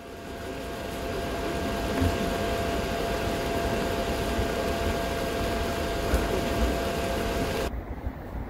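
Ramen cooking machine's hot plate running: a steady whirring hum with a faint high whine. Near the end it cuts abruptly to softer, gusty wind noise on the microphone.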